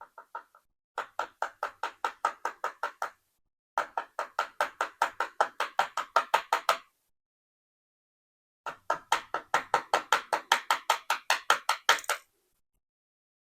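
Rapid repeated tapping on a disassembled Abus Vitess padlock, about five taps a second, in three runs of two to four seconds each with short pauses between.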